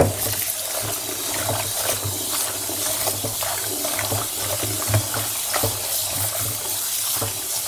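Kitchen tap running steadily as escarole leaves are rinsed under the stream, with small splashes and clicks from the leaves being handled. The water comes on suddenly right at the start.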